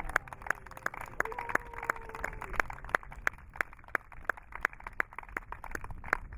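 Scattered applause from a small crowd, individual hand claps heard separately at an uneven rate of several a second.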